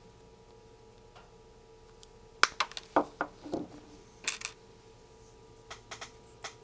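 Small sharp clicks and light metallic clinks of electronic components and tools being handled on a workbench: a quick cluster a little past the middle, some ringing briefly, then a few fainter ticks near the end, over a faint steady hum.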